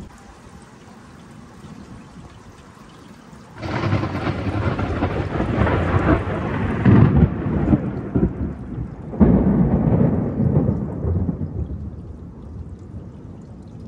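Thunder over steady rain: a loud crackling peal breaks in suddenly about three and a half seconds in and rumbles on, then a second sudden peal about nine seconds in rolls away and fades.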